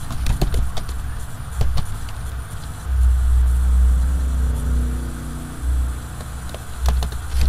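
Computer keyboard keys clicking as a word is typed, over a loud steady low rumble.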